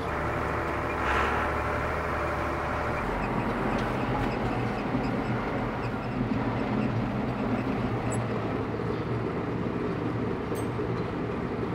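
Farm tractor's diesel engine running steadily at idle, a constant low drone.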